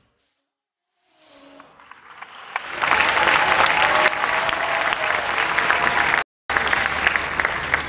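A large audience applauding. It swells in from silence about a second in and holds steady and loud, then cuts out for a moment near the end before going on.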